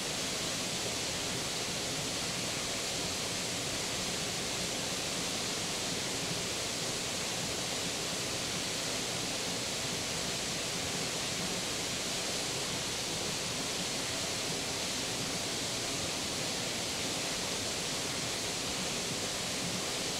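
Steady, even rushing noise with no distinct events, like hiss or running water.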